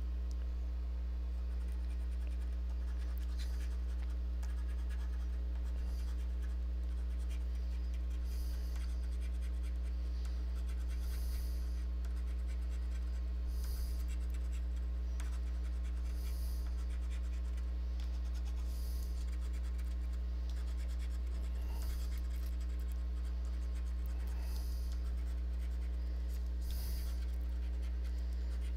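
A coin scratching the coating off a scratch-off lottery ticket in short strokes, coming every couple of seconds, over a steady low hum.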